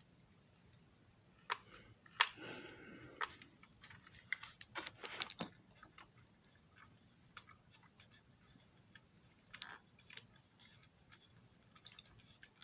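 Light clicks, taps and brief scraping of a small screwdriver and plastic model passenger-car parts being handled, busiest in the first five or six seconds, then only occasional faint ticks.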